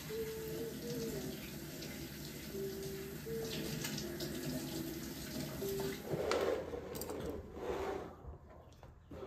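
Kitchen tap running in a steady rush that stops about eight seconds in.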